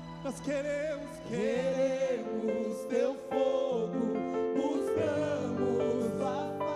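Worship band music: a voice sings a slow melody with vibrato over sustained keyboard and bass chords.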